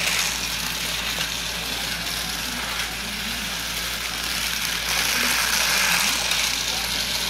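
Battery-powered Twister Tracks Bump & Go toy race car's small motor whirring steadily as it runs along the flexible plastic track, a little louder near the start and again about five seconds in.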